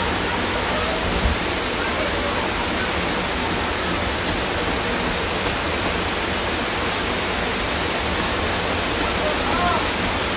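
Steady rushing noise of heavy rain and running floodwater, unbroken throughout.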